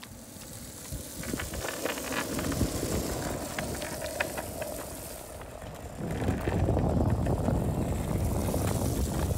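Longboard wheels rolling over rough, cracked asphalt: a continuous gritty rumble that gets louder about six seconds in, with scattered small clicks.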